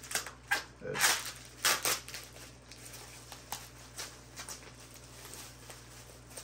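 Plastic bubble wrap rustling and crinkling as it is pulled open by hand. A few louder rasps come in the first two seconds, then softer scattered crackles.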